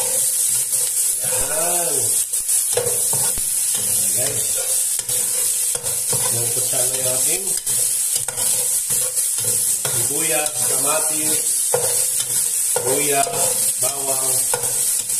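Onions, tomatoes and garlic sizzling as they sauté in oil in a pot, with a spoon stirring and scraping through them against the pan.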